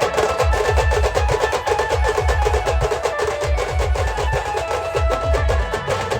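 Brass band playing an instrumental stretch: a fast, dense drum beat with regular bass drum hits under held melody notes from the horns.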